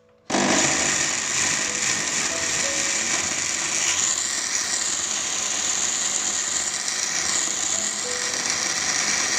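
Electric countertop blender running at full speed, chopping carrot pieces in liquid into a smooth puree. It switches on abruptly just after the start and runs loudly and steadily.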